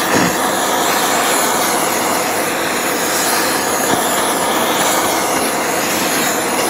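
Handheld gas torch burning with a steady rushing flame, heating an engine crankcase half around the crankshaft bearing so the case expands and lets go of the bearing.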